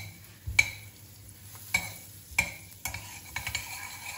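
Steel ladle clinking and scraping against a stainless steel kadhai as butter melts in it: three ringing clinks, then quicker, lighter scraping from about three seconds in, over a faint sizzle.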